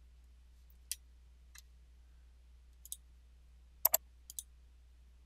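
Computer mouse button clicks: a few scattered single clicks, then a quick double click about four seconds in followed by a softer pair, over a faint steady low hum.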